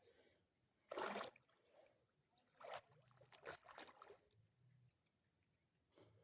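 A few brief splashes and sloshes of water as a person wades into the river: one about a second in, then a cluster of shorter ones around three to four seconds in.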